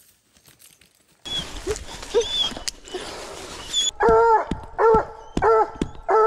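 Tied-back hunting hounds barking at the treed bear, four loud barks in a steady rhythm about two-thirds of a second apart, starting about four seconds in. Before them, a rough rustling and scraping as hands work the bark of the tree trunk.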